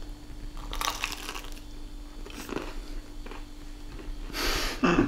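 Crunching bites into crispy deep-fried breaded chicken and chewing, loudest about a second in and again near the end.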